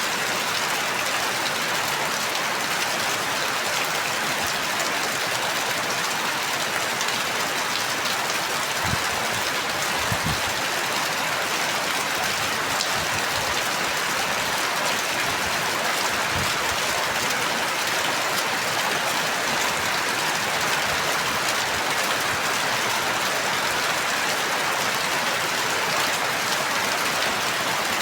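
Steady rain falling, an even hiss of drops, with a few soft low thuds about a third of the way through and again around the middle.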